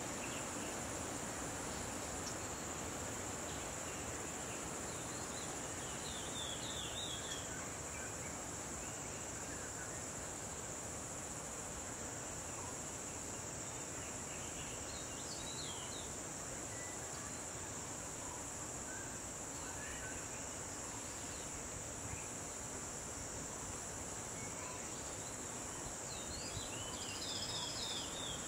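A steady, high-pitched insect chorus over a soft, even hiss, with a few short bursts of chirping bird calls: one about six seconds in, one around the middle, and one near the end.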